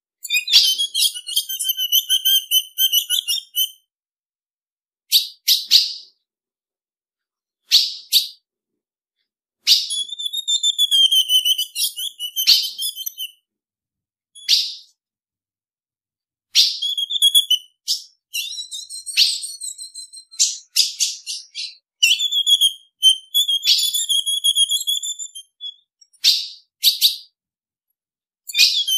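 Female ultramarine grosbeak (azulão) calling: short bouts of sharp, high chips and twittering, repeated again and again with brief silent gaps between them.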